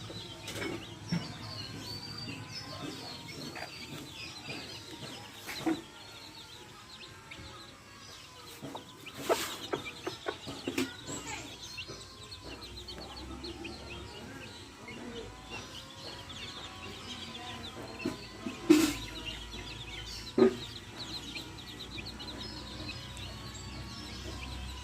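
Backyard hens clucking while their chicks peep almost continuously. A few louder, sharp sounds stand out here and there.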